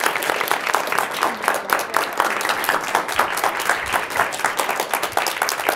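Audience applauding: dense, steady clapping of many hands.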